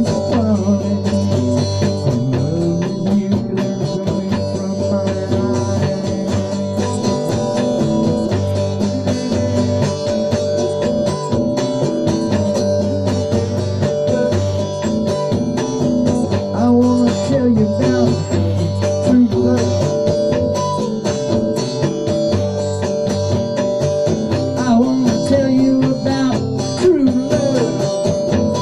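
Electric guitar playing an instrumental passage with notes bent up and down, over a steady sustained accompaniment.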